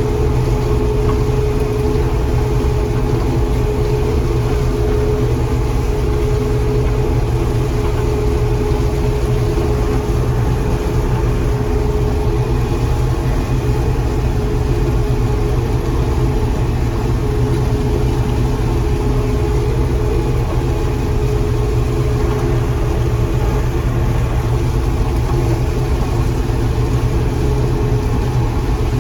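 John Deere 4400 combine running steadily while harvesting corn: a constant engine drone with an unchanging mechanical whine over it.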